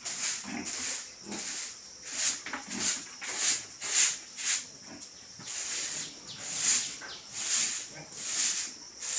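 Pigs grunting, a run of short grunts about one or two a second.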